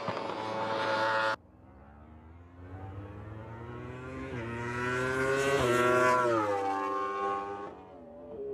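Superbike racing motorcycle engine at full throttle, its pitch climbing through the revs with brief dips at gear changes, then falling as the rider backs off. The sound cuts off suddenly about a second and a half in and picks up again on another bike.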